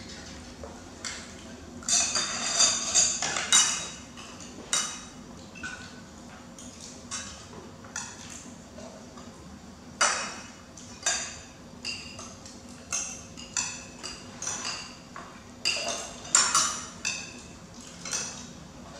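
Metal spoons clinking and scraping against ceramic plates and bowls as people eat: a string of sharp clinks with brief ringing, busiest about two to four seconds in and again through the second half.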